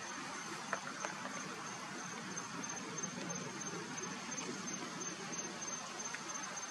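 Insects trilling: a steady, high-pitched pulsing chirp, with a couple of faint clicks about a second in.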